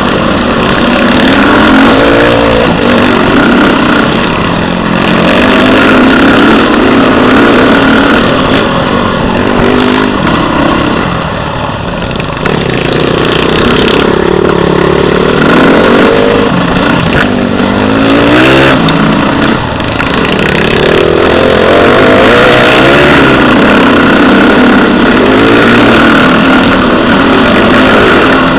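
Beta RR 450 four-stroke single-cylinder enduro motorcycle engine running hard on a dirt trail, heard from the rider's seat, its revs rising and falling over and over with the throttle.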